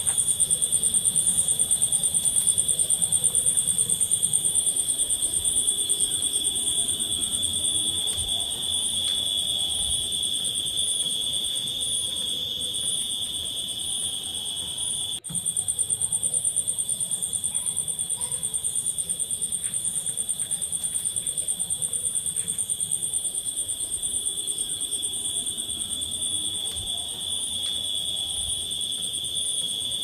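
A steady chorus of night insects, crickets trilling without a break on two high pitches, one very high. The trilling drops out for an instant about halfway through.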